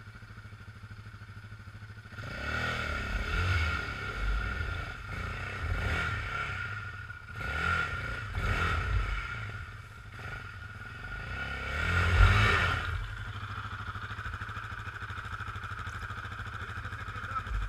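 Sport quad's engine revving hard in several uneven bursts, the loudest near the end, as it climbs up out of a muddy creek bank while towed on a rope. Under it another quad's engine idles steadily, and only that idle is left for the last few seconds.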